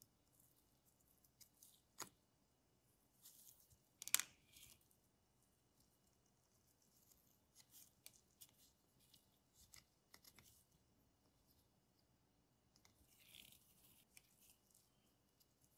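Faint clicks and scrapes of small watchmaking tools and parts being handled on a pocket watch movement as the dial screws are loosened and the dial lifted off: a sharp click about two seconds in, a louder crisp crackle about four seconds in, then scattered light ticks and rustles.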